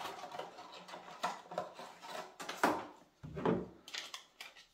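Handling noise of a 3D-printed plastic slide being drawn out of its clear plastic sleeve and fitted onto a Cyma CM030 airsoft pistol: scattered light clicks and rubbing, with a duller knock about three and a half seconds in.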